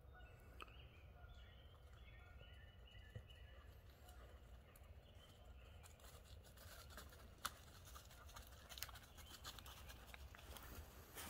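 Footsteps and a dog's paws crunching and rustling through dry fallen leaves on the forest floor, with the crackles coming thicker from about halfway. In the first few seconds there are faint distant bird calls.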